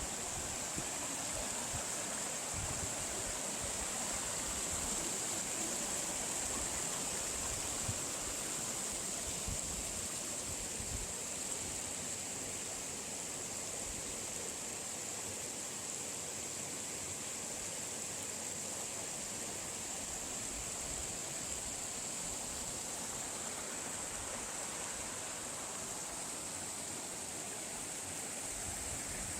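Valley stream flowing: a steady rush of water, with occasional low wind buffets on the microphone in the first half.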